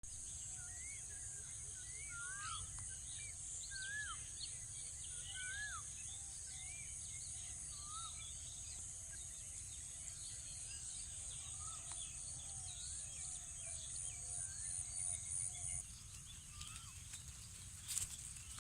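Many birds chirping and whistling in short rising and falling calls over a steady, high, pulsing insect drone, which fades about sixteen seconds in, with a low rumble underneath. A sharp knock near the end.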